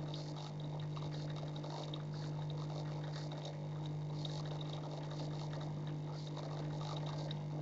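Fish-tank equipment running: a steady low hum with water bubbling and trickling, full of small irregular crackles.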